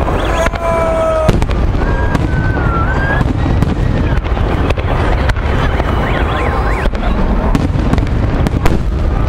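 Aerial fireworks shells bursting overhead: a steady run of sharp bangs over a continuous rumble, with the loudest bang near the end.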